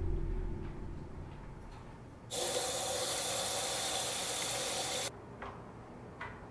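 Bathroom sink faucet turned on, water running in a steady stream over a hand into the basin for about three seconds, then shut off abruptly.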